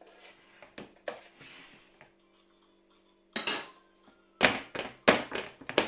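A metal offset spatula scraping cake batter across a parchment-lined baking tray, with a couple of light clicks. Then, from about halfway in, several sharp metallic knocks and clatters in quick succession, the loudest sounds here.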